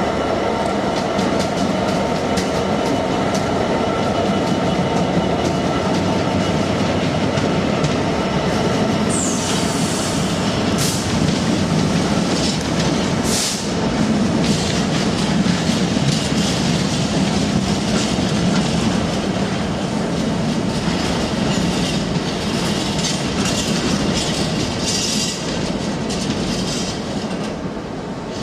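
A train running through the station, its wheels clattering steadily over the rails, with a brief high wheel squeal about a third of the way in and a few sharp clanks just after.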